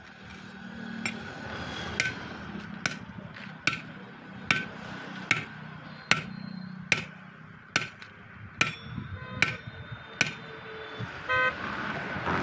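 Steady, evenly spaced metal blows on a steel truck wheel rim, about one every 0.8 seconds, a dozen in all, as a truck tyre is worked on its rim. A vehicle horn toots briefly near the end.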